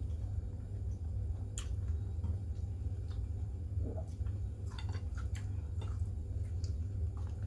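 Mukbang eating sounds: a few soft clicks and small mouth and food noises of chewing, over a steady low hum.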